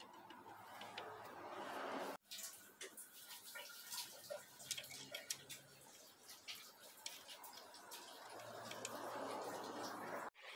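Faint light clicks and taps of a connecting-rod big-end cap being handled and fitted onto the crankshaft journal. The sound drops out briefly about two seconds in and again near the end.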